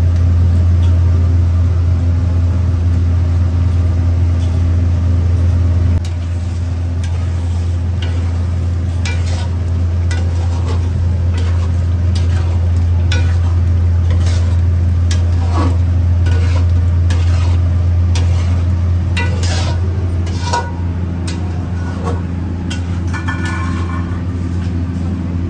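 Chicken curry being stirred in a large aluminium cooking pot: scattered clicks and scrapes against the pot, over a loud steady low hum that drops slightly about six seconds in.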